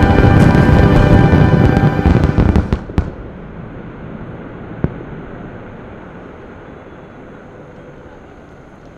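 Fireworks finale: a dense barrage of overlapping bangs over music that stops abruptly with a final sharp crack about three seconds in. One more lone bang follows a couple of seconds later, then only a low fading rumble.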